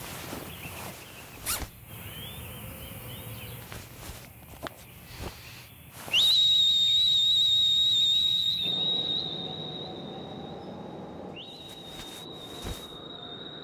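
A high, steady whistle tone begins about six seconds in. It is loudest for the first two and a half seconds, drops back, and comes in again near the end. Small scattered clicks and rustles sit around it.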